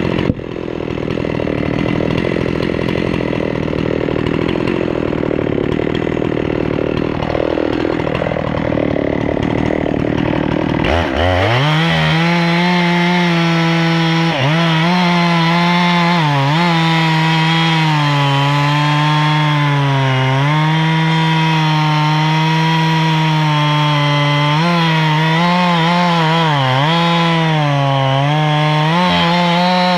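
Gas chainsaw running slow for about the first ten seconds, then revved up to full throttle about eleven seconds in and cutting at the base of a pine stump. Its high engine note sags and recovers repeatedly as the chain loads in the wood.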